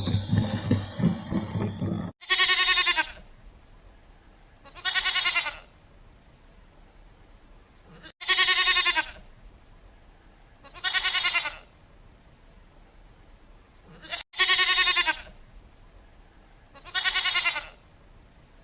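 A farm animal bleating six times, in pairs, each call under a second long with a wavering, quavering pitch. Before them, a loud low-pitched sound cuts off abruptly about two seconds in.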